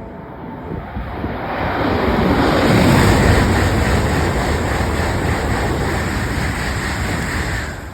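A Shinkansen bullet train passing through the station at speed without stopping: a rushing roar of air and wheels that builds over about two seconds, holds strong for several seconds as the cars go by, and drops away sharply near the end as the last car passes.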